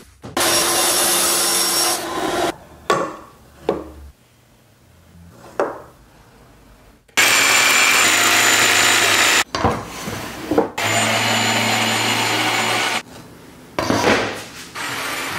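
A drill boring pocket holes into wood in three bursts of about two seconds each, each starting and stopping suddenly. A few sharp knocks fall in the quieter gaps between.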